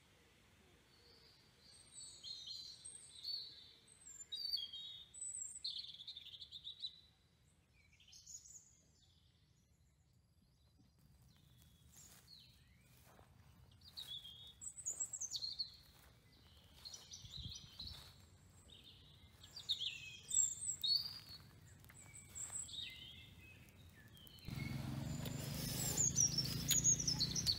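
Wild birds chirping and calling, short high notes coming in bursts with quiet gaps between. Near the end a louder steady noise comes in suddenly under the bird calls.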